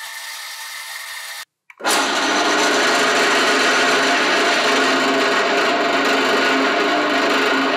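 A power drill boring into a metal shaft, running steadily. About a second and a half in the sound cuts out briefly, then a lathe drilling into the metal with a twist bit runs much louder and steady.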